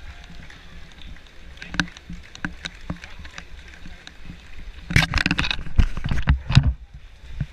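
Footfalls of a running crowd and the regular jolts of a handheld action camera carried at a run, about three knocks a second. About five seconds in comes a louder stretch of knocking and rubbing on the camera, lasting under two seconds, as it is turned round to face the runner.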